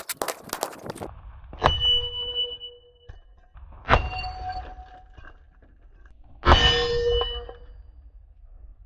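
Steel plate targets hit by .500 S&W rifle bullets three times, each hit a sharp bang followed by the steel plate ringing. The third hit, about six and a half seconds in, is the loudest and rattles on for about a second.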